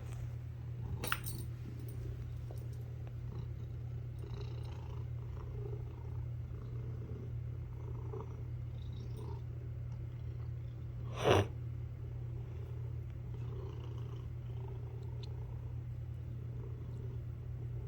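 Domestic cat purring steadily, with one short sharp sound about eleven seconds in.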